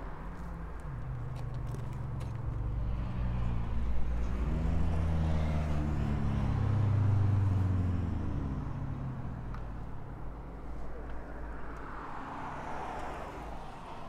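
A car engine running as a vehicle goes by, its pitch bending up and down and loudest about seven seconds in before fading.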